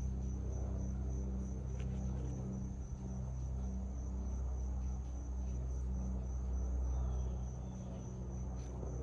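Crickets chirring in one steady high-pitched tone, over a louder, steady low rumble.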